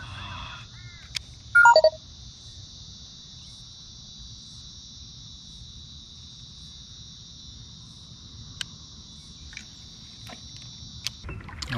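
Steady high-pitched insect drone that stops suddenly shortly before the end. About a second and a half in, a bird gives one short, loud call falling in pitch, and a few sharp clicks come through under a low even background hiss.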